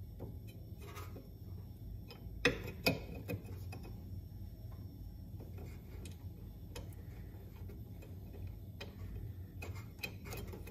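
Scattered light clicks and taps from hands working a rubber auger paddle against the metal auger of a Honda HS520 snowblower, with two sharper clicks about two and a half seconds in, over a low steady hum.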